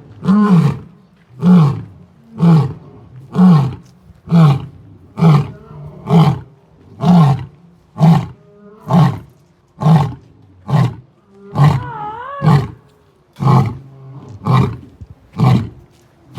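A lion roaring in a long, steady series of deep, loud grunt-roars, about one a second, each falling in pitch.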